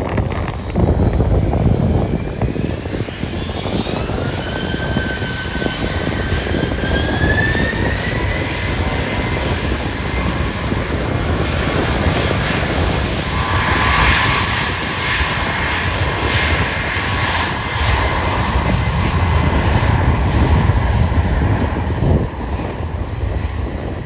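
Jet airliner engines running loud and steady, with a whine that rises in pitch about four to eight seconds in over a constant low rumble.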